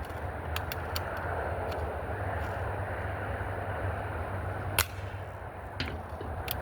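Remington Airmaster 77 pump-action BB rifle being handled, with a few light clicks and one sharp snap about five seconds in, over a steady background rumble.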